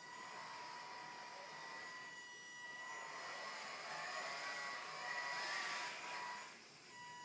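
Electric motor and gearbox of an RC scale Land Rover Defender 110 whining as it drives, towing a boat trailer across a wooden floor. The whine grows louder from about three seconds in, is loudest near six seconds, then drops off.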